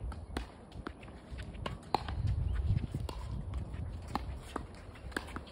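Footsteps and scattered light taps on a tennis court, a few a second at uneven spacing, over a low rumble.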